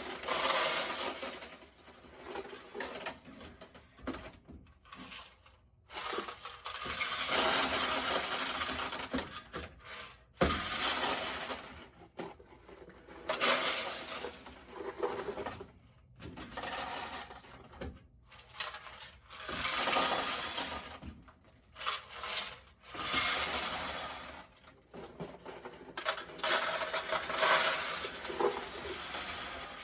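Loose quarters clinking and jingling as they are poured and handled, in bursts of a few seconds with short pauses between them.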